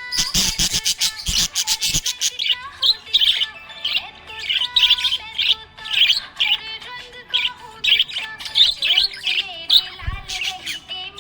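Budgerigars chirping and twittering in quick, repeated high chirps, over steady background music. A run of sharp knocks sounds in the first two seconds.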